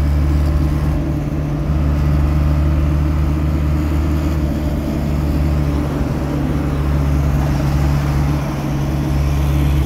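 Engine and road noise of an Isuzu vehicle heard from inside the cabin while it drives along at steady speed: a loud, steady low drone.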